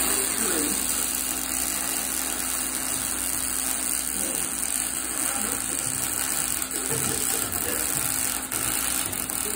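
Electric arc welding: the arc crackling and sizzling steadily as a bead is run, without a break.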